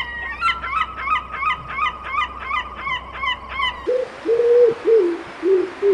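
Seagull calling a rapid series of short, yelping pitched notes, about three or four a second. Just before the four-second mark the background changes abruptly and several low, hooting bird calls follow.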